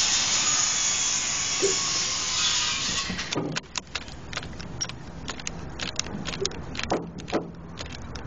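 A tool runs with a steady hissing whirr and stops abruptly about three seconds in. Irregular light clicks and taps follow.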